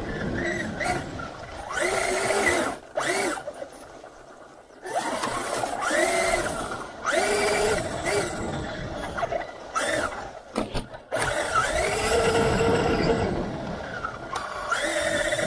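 Traxxas Unlimited Desert Racer RC car's brushless electric motor and drivetrain whining, the pitch rising and falling again and again with bursts of throttle. Underneath is a rough rumble of the chassis and tyres bouncing over grass, heard from a camera strapped to the car, with a quieter lull about four seconds in.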